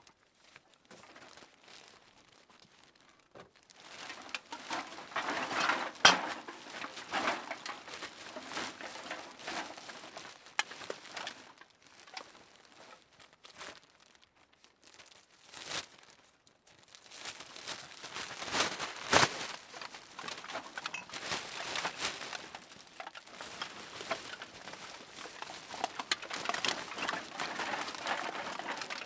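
Cans being dropped into a bag: bag rustling and crinkling with irregular clatters of cans knocking together, a sharp impact about six seconds in and another, the loudest, at about nineteen seconds, with a couple of quieter pauses between the bursts.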